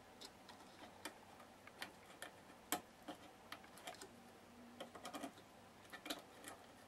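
Faint, irregular small clicks and taps of a small screwdriver and fingers working a CR2032 coin cell out of its metal holder on a radio circuit board, the sharpest click about three seconds in.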